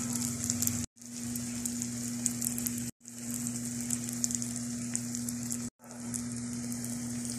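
Sisig sizzling on a hot sizzling plate, a steady hiss with fine crackles from the bubbling fat and sauce. The sound drops out briefly three times where the footage cuts.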